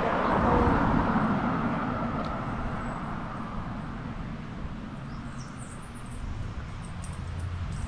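A vehicle passing by, its engine and tyre noise fading steadily away over the first few seconds. Faint high chirps come in near the end.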